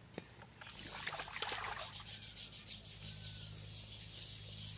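Rapid, rough scrubbing and scraping as a fire-singed goat head is rubbed by hand to strip off the charred hair and skin, starting about a second in.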